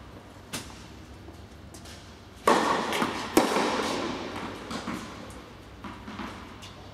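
Tennis ball being struck by rackets and bouncing on an indoor court, a series of knocks that echo in the hall. The loudest is a hard hit about two and a half seconds in, with a long echo, and another sharp hit follows about a second later. Fainter bounces and hits come in the last few seconds.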